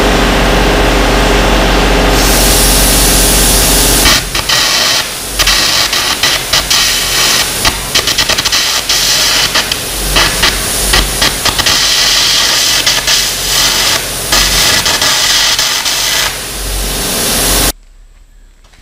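A welder runs with a steady drone. About four seconds in, carbon arc gouging starts on a steel shaft: a loud crackling hiss full of sharp pops as the arc cuts away metal. It cuts off abruptly near the end.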